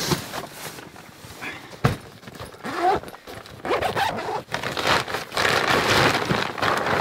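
Zipper being pulled open on a bag holding an ARB awning room, with rustling and scraping of the bag fabric as it is handled. There is a single sharp knock about two seconds in.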